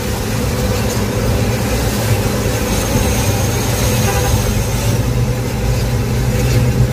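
Steady engine hum and tyre and road noise heard from inside a vehicle cruising at highway speed.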